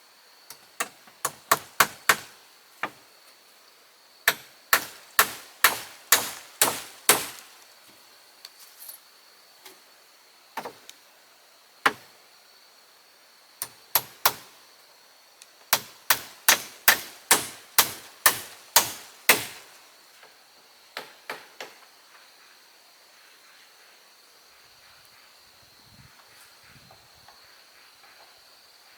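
Runs of sharp hammer blows, about two to three a second, driving nails into wooden boards, with pauses between the runs.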